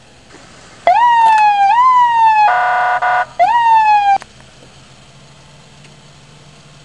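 Electronic vehicle siren sounded in a short burst, starting about a second in: quick upward sweeps that slide back down, broken in the middle by about a second of a harsh buzzing horn tone, then cut off after about three seconds.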